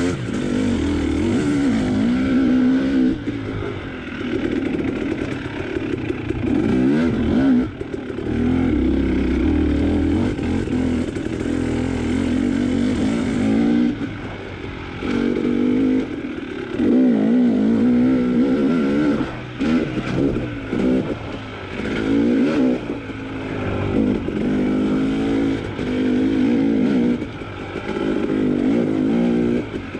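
KTM dirt bike engine revving up and down over and over as the throttle is worked, rising and falling every second or two.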